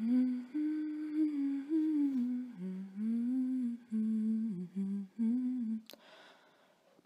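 A woman humming a slow, wandering tune in a low-middle register, holding and gliding between notes, until she stops about six seconds in.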